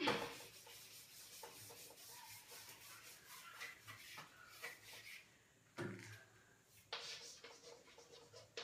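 Blackboard duster rubbing chalk off a chalkboard in repeated faint strokes. About six seconds in there is a short knock, then chalk scratching on the board as words are written.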